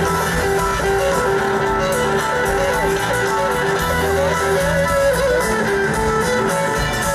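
Live rock band playing: a Fender Stratocaster electric guitar plays a lead line with bent, wavering notes over drums and bass guitar.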